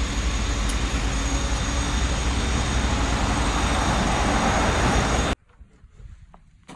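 Steady traffic noise of a city street, which cuts off suddenly about five seconds in, leaving a quiet room with a few faint knocks.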